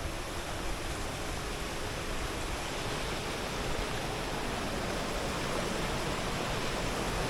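Steady rush of fast-flowing river water, an even hiss with a low rumble that grows a little louder near the end.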